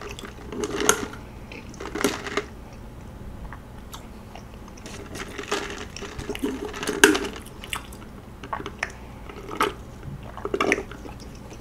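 Sips through a straw from an iced drink in a plastic cup, with scattered clicks of ice against the cup and a few chewing crunches.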